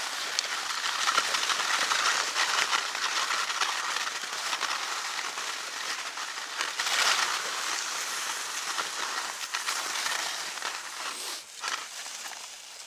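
Skis sliding and scraping over packed snow during a downhill run: a steady crackling hiss that swells and eases with the turns.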